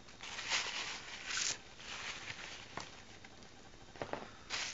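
Clear plastic bag crinkling and rustling in a few short bursts as it is handled, with a couple of light taps between them.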